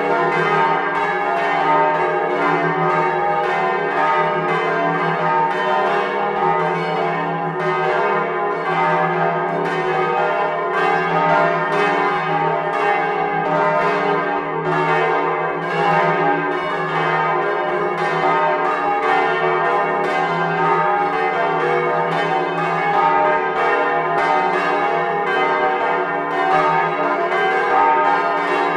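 Several swinging bronze church bells ringing together as a full peal, their clappers striking in quick, overlapping succession so that the strokes run into one continuous ringing clamour.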